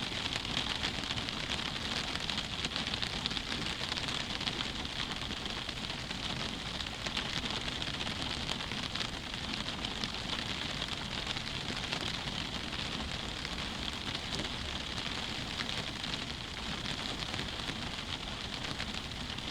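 Steady rain pattering on a window pane: a dense, even hiss of drops with fine crackles.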